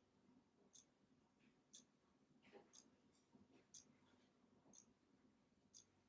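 Faint, high-pitched ticks, evenly spaced at about one a second, with a few soft rustles in between.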